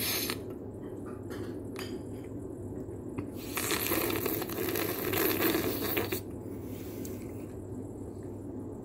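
Kitchen background noise: a steady low hum, with a louder stretch of hissing noise lasting a couple of seconds midway, and a short click at the very end.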